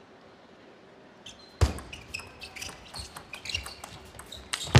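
Table tennis rally: the plastic ball clicking quickly back and forth off the bats and the table, with short shoe squeaks on the court floor. It starts about a second and a half in, with a hard hit at the start and another near the end.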